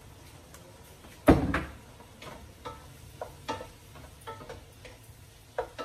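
Kitchen clatter at a cooking pot: one loud knock about a second in, then a run of light clinks and taps as utensils and containers are handled while tomato sauce and paste go into the pot.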